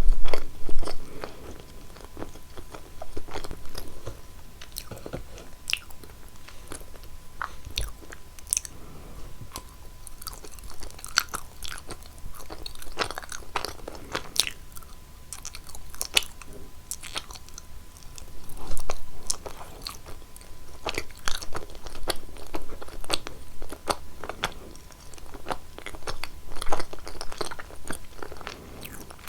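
Close-miked eating sounds of someone eating cheese: bites and chewing with many scattered sharp clicks and crunches, a little louder just at the start and again about two-thirds of the way through.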